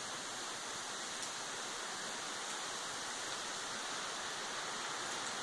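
Steady hiss of wind and rain in the trees during a hurricane's approach, with a few faint ticks.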